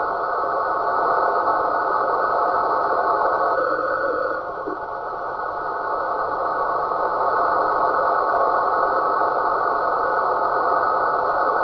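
Radio receiver static: a steady hiss, strongest in the middle of the range, with faint steady tones in it and a brief dip about four seconds in.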